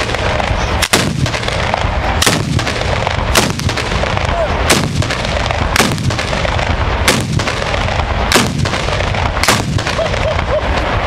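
A ground-level fireworks battery of firecrackers and bombs going off in a dense, continuous crackle, with a louder bang about once a second.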